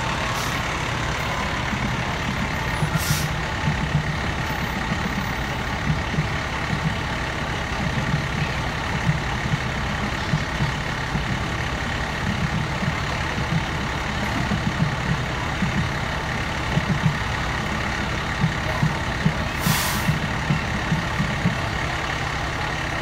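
Heavy fire-truck diesel engines running as the apparatus rolls slowly past, a steady rough rumble. A few short hisses of air brakes come about 3 s in and again near the end.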